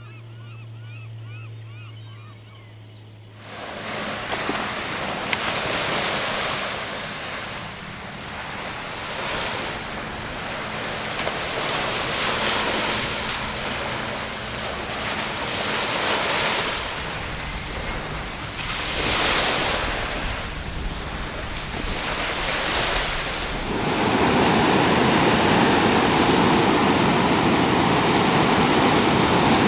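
Ocean surf: a low steady hum for the first few seconds, then waves washing in swells every two to three seconds, and from about 24 seconds in a louder, steady rush of surf breaking on rocks.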